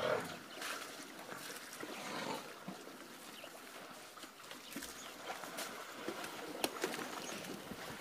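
Elephant herd at a muddy waterhole: irregular splashes, slaps and knocks of mud and water as the elephants wallow, spray and drink.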